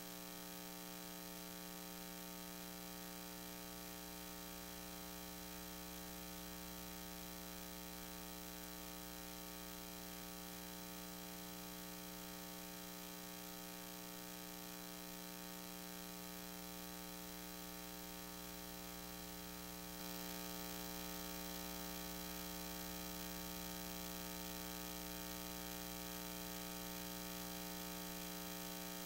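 Steady electrical mains hum and hiss on the audio track, a buzz with many evenly spaced overtones and no other sound. It steps up slightly in loudness about twenty seconds in.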